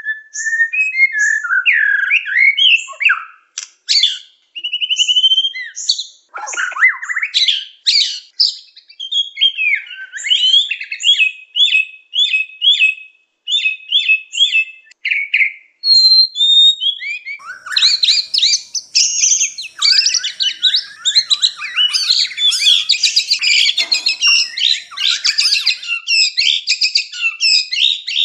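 White-rumped shama (murai batu) singing a varied song of clear whistles, slurred notes and quickly repeated phrases. A little past the middle it becomes denser and busier chattering.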